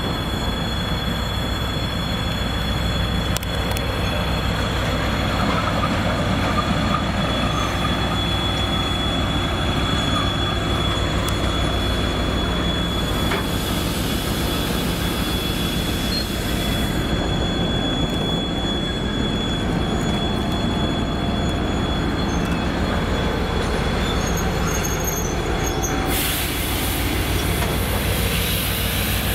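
Twin-section 2M62U diesel locomotive with its two-stroke 14D40 diesel engines running as it rolls slowly past, with a steady low rumble and a continuous high wheel squeal. A hissing noise rises twice, about halfway through and again near the end.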